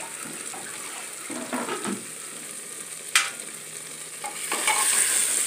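Mutton curry sizzling in an aluminium pressure cooker while a metal ladle stirs and scrapes through it, with one sharp clink of the ladle on the pot a little after three seconds in.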